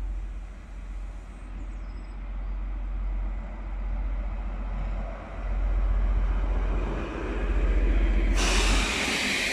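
Diesel locomotive hauling car-carrier wagons passing close by, its low engine rumble growing louder as it nears. Near the end a loud hiss sets in suddenly as the locomotive goes by and the wagons roll past.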